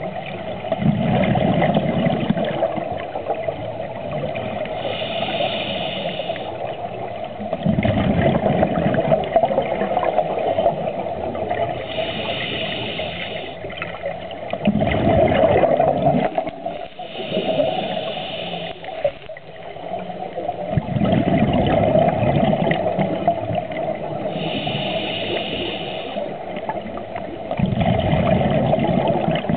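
Scuba diver breathing through a regulator underwater. A hissing inhale alternates with a bubbling exhale, the exhales coming about every six to seven seconds over a steady hum.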